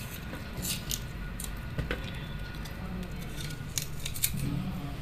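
A knife cutting into firm amla (Indian gooseberry) fruit held in the hand, making a handful of short, crisp cutting clicks at uneven intervals over a steady low hum.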